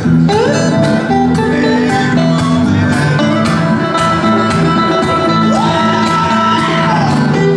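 Two guitars playing together live: an acoustic guitar strumming chords under a second guitar's lead line. The lead notes slide up in pitch just after the start and again later on, with a long held note between.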